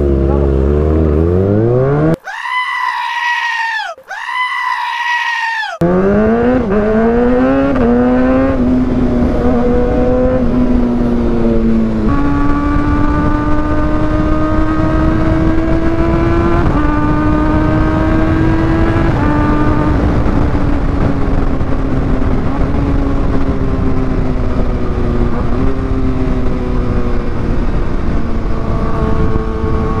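Kawasaki ZX-6R 636's inline-four through an Austin Racing GP1R aftermarket exhaust, ridden hard: the revs climb through several quick upshifts, then it cruises with a steady exhaust note that changes pitch a little and rises again near the end. About two seconds in, the low rumble cuts out for two short, higher, rising-and-falling sounds.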